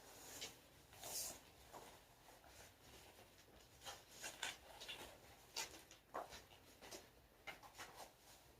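Faint, scattered rustling and brushing of a person shifting position on an exercise mat, body and clothing rubbing as they move into the next stretch.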